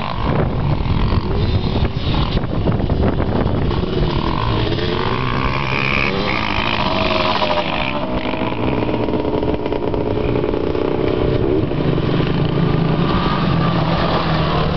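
Sport ATV (quad) engine running hard across sand, its pitch rising and falling with throttle changes. It grows louder as the quad passes close near the end.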